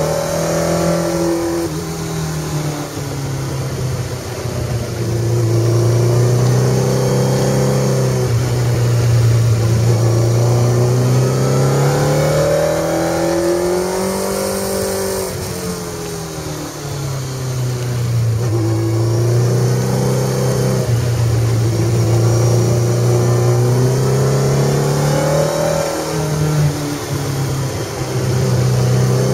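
Kawasaki Z1000's inline-four engine pulling along a twisty road, its revs climbing and falling again and again as the throttle is opened and closed through the bends, with wind noise underneath.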